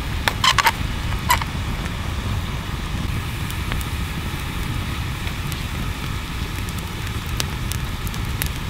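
Wood campfire burning, with scattered crackles and pops over a steady low rumble of wind on the microphone. A few sharp metallic clinks come about half a second and a second in, from the wire grill rack as it is set over the fire.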